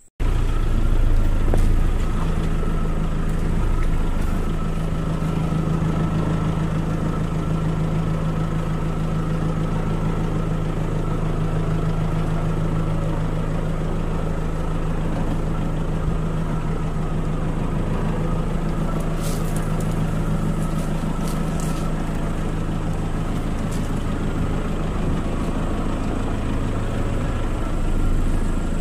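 Pickup truck engine running steadily at low speed as the truck crawls over a rough dirt track, with a few short clicks about two-thirds of the way through.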